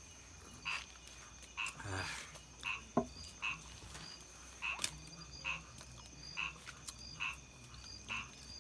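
Frogs calling: a short croak repeated steadily about once a second, over a faint steady high tone. A single sharp click about three seconds in.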